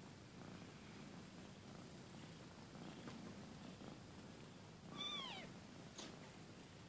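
Two-week-old kitten purring faintly, with one short, high mew that rises and falls about five seconds in.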